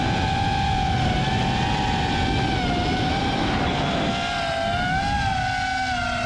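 Quadcopter drone's propellers whining at a steady, slightly wavering pitch, over a low rushing noise that thins about four seconds in.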